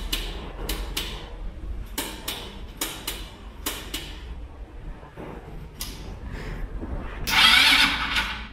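Scattered, irregular clicks and knocks of hands working a battery charger and ATV controls, then a loud hiss lasting about a second near the end.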